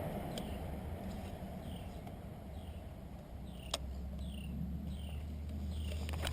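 A bird calling over and over, a short falling chirp repeated about once a second, over a low steady rumble. A single sharp click comes a little past halfway.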